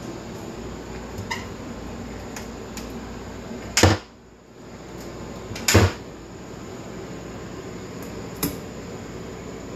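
A cabinet door knocking twice, about four and six seconds in, as it is opened and shut, over a steady mechanical hum. A lighter click comes near the end.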